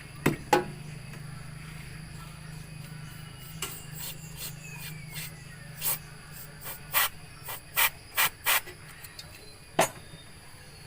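A string of sharp clicks and knocks over a low steady hum: two just after the start, then about six more, bunched in the second half.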